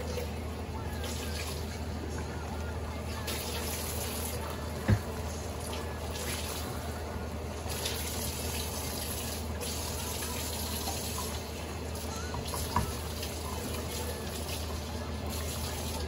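Pot of mung bean soup simmering, a steady bubbling hiss over a low hum, while a wooden spoon stirs it. A sharp clack about five seconds in and a lighter knock near the thirteen-second mark.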